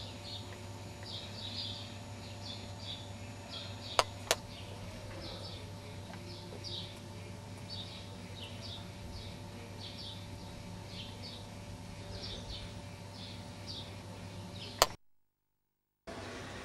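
Small birds chirping over and over, short high calls in quick clusters, over a steady low hum. Two sharp clicks about four seconds in, and another click near the end followed by a second of dead silence where the recording cuts.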